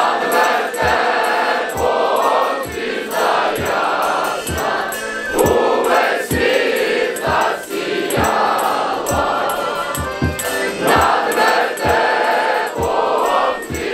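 Large crowd of carollers singing a Ukrainian Christmas carol (koliada) together, with low thumps keeping a beat about twice a second.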